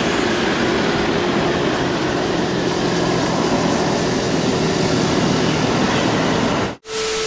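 Steady rush of wind and road noise on a scooter-mounted camera while riding, with a faint low hum under it. It cuts off sharply near the end, and a brief burst of noise carrying a steady tone follows.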